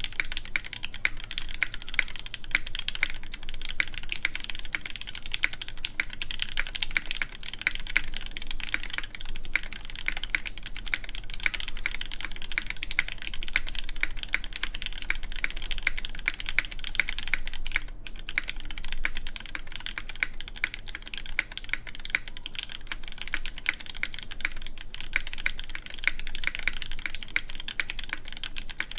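Continuous fast typing on an iNN Studio Parabolica60 custom mechanical keyboard, top-mounted, with lubed Gateron Red Ink linear switches on an aluminum plate under GMK keycaps. Keystrokes come in a dense, steady stream of sharp clacks without pause.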